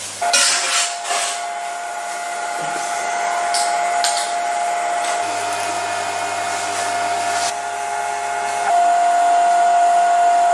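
An electric machine's motor running with a steady whine that steps louder near the end, over a few short clicks and rustles of handling.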